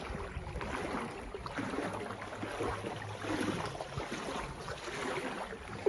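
Floodwater sloshing and lapping, with wind noise on the microphone.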